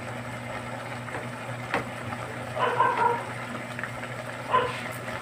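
A ladle scooping vegetable soup from a metal pot into a bowl, with one sharp clink just under two seconds in, over a steady low hum. Short pitched calls come about three seconds in and again near the end.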